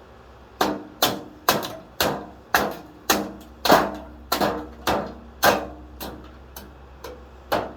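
Repeated hard knocks on a wrecked electric box fan, about two a second and slightly uneven, each with a short ringing tail, over a low steady hum.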